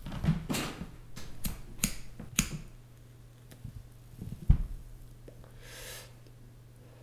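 A few sharp clicks and taps in the first couple of seconds, a dull thump a little past the middle, and a short hiss near the end, over a steady low hum.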